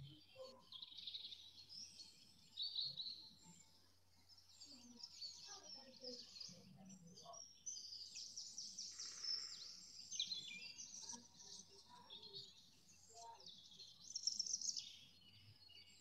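Woodland dawn chorus: several songbirds singing at once, faint, a continuous tangle of overlapping chirps, trills and whistles.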